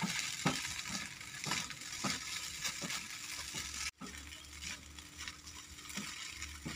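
Fried rice sizzling in a non-stick wok while a spatula stirs and scrapes through it, in short strokes about twice a second. The sound cuts out briefly about four seconds in.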